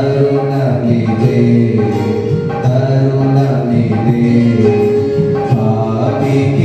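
A man singing a Telugu Christian gospel song into a handheld microphone, holding long melodic notes with short breaks between phrases.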